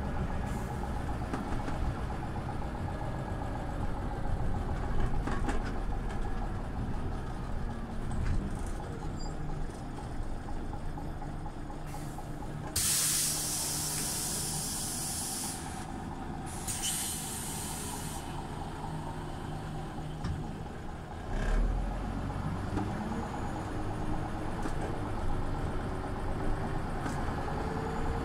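Scania OmniLink city bus running, with two loud hisses of compressed air from its pneumatic system about halfway through, the first about two and a half seconds long, the second shorter. A low thump follows a few seconds later.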